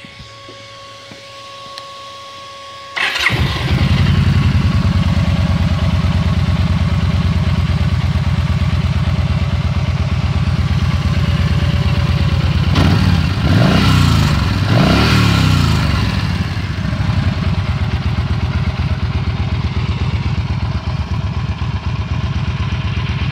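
Yamaha Stryker's 1304 cc V-twin on its stock exhaust, started about three seconds in and idling with a steady beat. It is blipped up a few times partway through, then drops back to idle.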